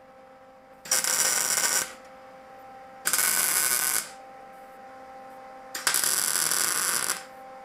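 Wire-feed welder laying three short tack welds on 14-gauge steel square tubing, each about a second of loud, steady arc crackle. A faint steady hum runs between the tacks.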